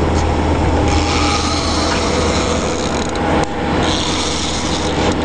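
Conventional fishing reel being cranked, its gears and clicker ratcheting continuously, over a steady low drone.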